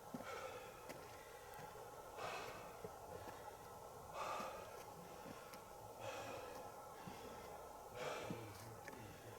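Slow breathing close to the microphone, one soft breath about every two seconds.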